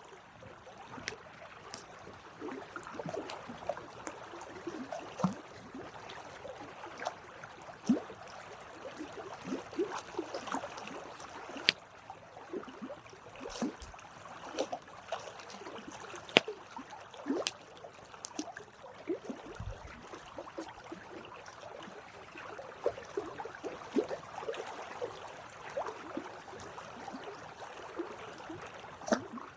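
Campfire burning, with a constant crackle and sharp wood pops at irregular intervals.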